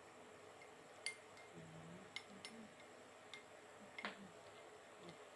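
A spoon clicking lightly against a glass bowl while sauce is stirred: a few faint, separate clinks over near silence.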